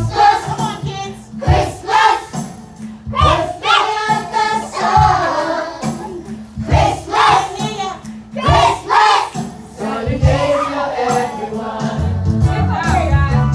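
Music with a choir singing over a steady bass line.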